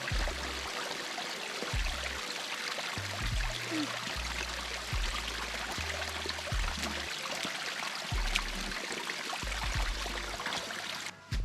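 A stream of running water flowing steadily, with soft background music and a low bass line underneath. The water sound cuts off suddenly near the end while the music carries on.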